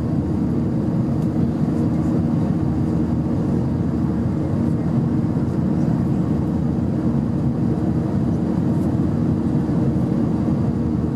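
Steady cabin noise of an Airbus A319 in the climb after takeoff, heard from a seat over the wing: the jet engines' low drone and the rush of air past the fuselage, with a steady low hum and no change in level.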